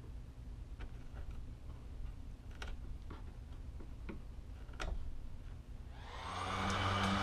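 Faint clicks and scrapes of a hand tool cutting stray ridges off an MDF CNC spoilboard. About six seconds in, an electric motor starts and runs up to a steady hum.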